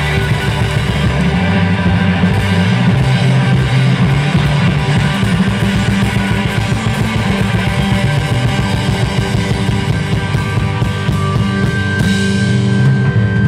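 Live rock band playing loudly, with electric guitars, bass guitar and drum kit, and no vocals.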